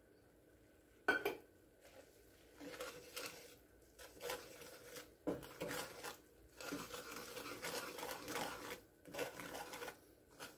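Wooden slotted spatula scraping and mashing a thick butter-and-flour roux in a skillet in irregular strokes, working out the flour lumps. The strokes come after a single sharp knock about a second in.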